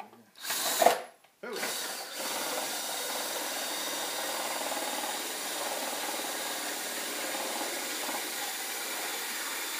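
Homemade apple grinder, a PVC drum studded with screw-head teeth, spun by a power tool: a short loud burst about half a second in, then a steady, even run of grinding.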